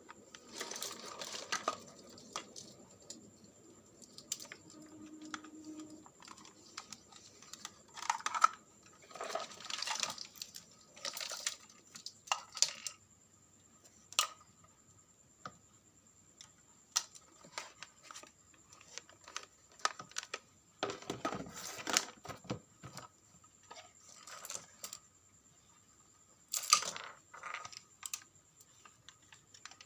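Irregular small clicks, taps and scraping from hands working on small parts during a vacuum cleaner battery replacement, with a faint steady high whine underneath.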